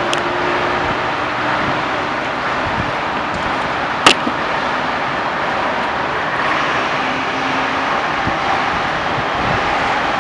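Steady distant city traffic noise, with one sharp click about four seconds in.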